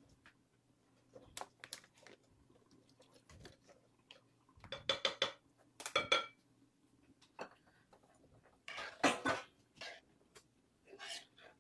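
A spoon clinking and knocking against a mixing bowl as oil is stirred into cornbread batter, coming in irregular bursts with a few louder ringing knocks in the middle.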